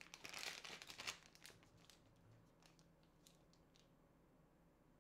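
Clear plastic bag crinkling as it is opened and handled, loudest in the first second or so, then dying away to a few faint rustles and ticks as the USB-C charging cable inside is drawn out.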